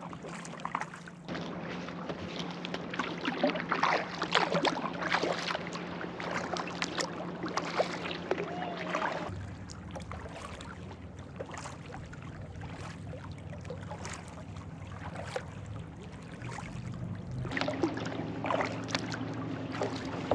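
Kayak paddle strokes splashing and dripping in lake water, over a steady low motorboat engine hum that shifts in pitch about nine seconds in and rises again near the end.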